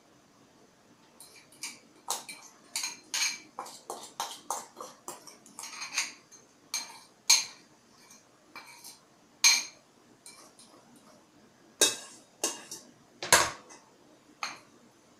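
Irregular sharp clinks and knocks of a ceramic bowl against an enamel pot, as beaten egg yolks are tipped out of the bowl into the pot, a few louder knocks standing out in the second half.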